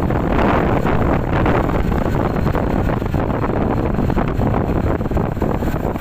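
Wind rushing over the microphone, with the engine and tyre noise of a motorcycle riding at about 45 km/h.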